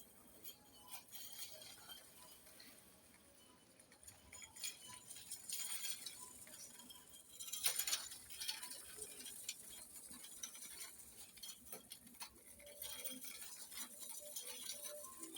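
Scattered light clinks and clatter of small hard objects being handled, with one louder knock about eight seconds in.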